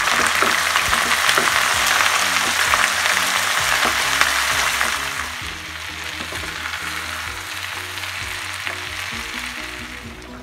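Sliced onions and then tomatoes frying in hot oil in a kadai, stirred with a spatula: a loud sizzle that eases to a quieter sizzle after about five seconds.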